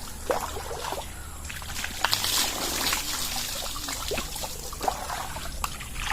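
Water trickling and pouring, with scattered small splashes and knocks, as someone bathes with well water.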